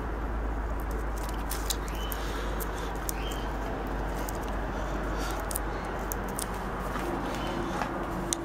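Small sharp clicks and taps of fingers handling wires and the thermal fuse on a small transformer, scattered irregularly over a steady background hiss and low hum. A few faint short chirps sound in the background.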